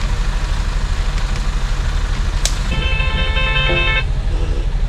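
Truck's diesel engine idling steadily, heard inside the cab. About two and a half seconds in there is a click, then a phone ringtone sounds for about a second as a call comes in.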